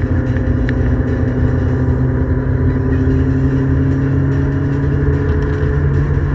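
Ford Escort XR3i 1.8 16v's four-cylinder engine running steadily at speed on a race track, heard from inside the car, its pitch holding fairly even.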